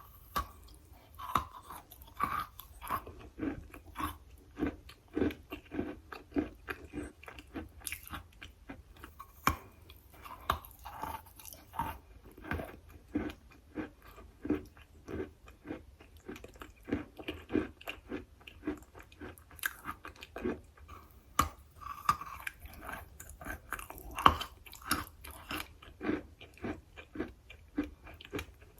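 A person chewing and biting a hard, chalky material, with steady wet crunching at roughly two chews a second and a few sharper cracks.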